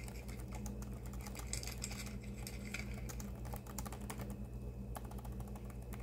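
Stack of Upper Deck Moon Knight trading cards being flicked and slid through the fingers: a run of small, quick clicks and ticks over a steady low hum.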